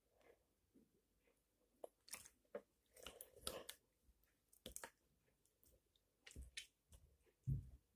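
Pink slime being squeezed and kneaded by hand, giving faint, irregular wet clicks and crackling pops as air pockets burst. A soft low thud comes near the end.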